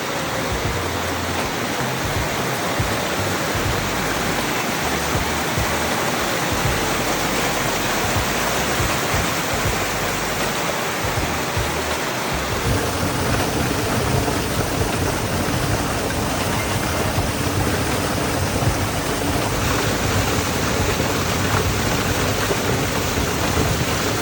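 A waterfall's water rushing and splashing steadily, a dense even hiss.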